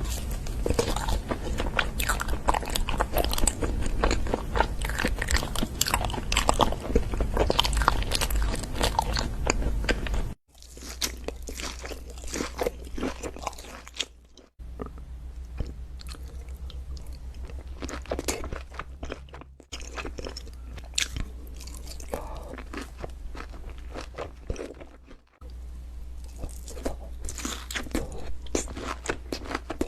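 Close-up crunchy eating: crisp bites and chewing, a rapid run of crackles. It breaks off abruptly four times, each time going on quieter, the first ten seconds the loudest.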